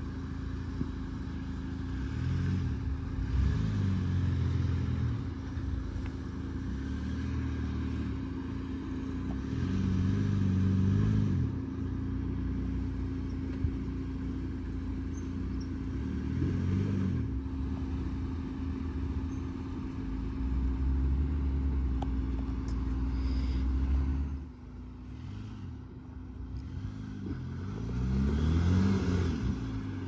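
Jeep's engine revving up and dropping back in several short surges as it crawls up a steep rocky trail at low speed. A steady hum lies underneath and stops near the end.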